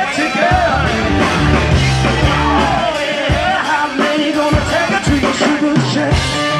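Hard rock band playing live, with distorted-sounding electric guitar and drums under the singer's voice.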